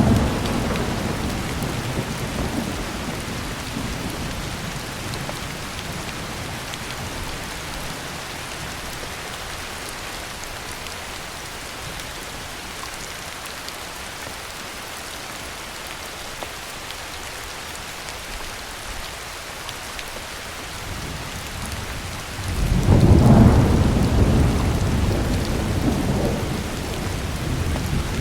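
Heavy rain falling steadily, with two rolls of thunder: one that starts right away and fades over several seconds, and a louder one near the end that swells suddenly and rumbles on as it slowly dies away.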